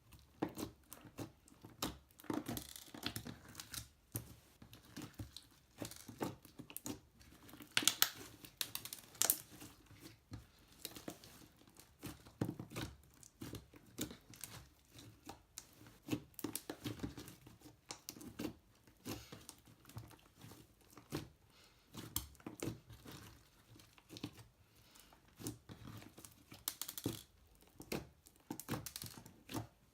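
Slime being squished and stretched by hand, giving off irregular crackling clicks and pops, a few each second.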